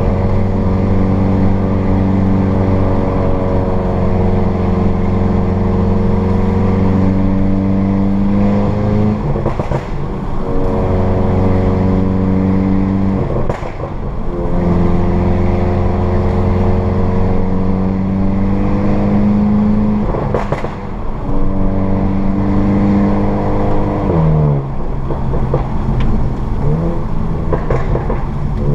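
2015 VW Golf GTI Mk7's turbocharged 2.0-litre four-cylinder, through a Borla S-Type catback exhaust, droning under load with its note slowly climbing. The drone is cut several times by short breaks with crackles from the APR crackle tune. Near the end the note drops and wavers unevenly before it picks up again.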